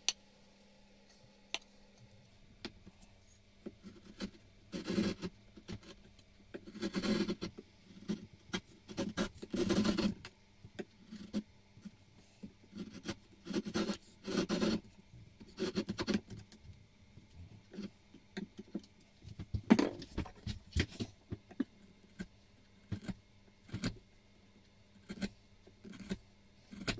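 Chisel paring beech by hand: a series of short scraping cuts at irregular intervals, each under a second, with small clicks in between. The loudest cut comes about two-thirds of the way through.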